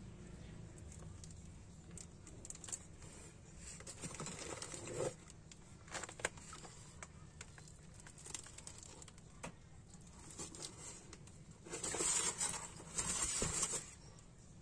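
Plastic fish-shipping bags rustling and crinkling as hands handle them, with scattered light taps. The loudest crinkling comes in two bursts about twelve seconds in.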